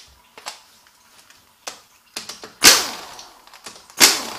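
Cordless impact tool firing two short bursts about a second and a half apart, loosening the 10 mm bolt that holds a speed sensor to the aluminium case of a 09A automatic transmission. Light handling clicks come before them.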